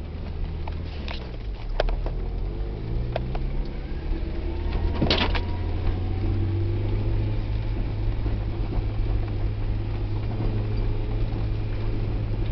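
Car engine running, heard from inside the cabin as the car drives over a bumpy snow-covered forest track. The revs rise and fall in the first couple of seconds and then settle to a steady hum. There are a few sharp knocks from the jolting, and a louder clatter about five seconds in.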